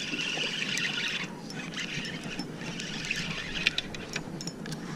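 Spinning fishing reel being cranked, a steady whirring hiss in two stretches with a short break a little over a second in, and a few small clicks.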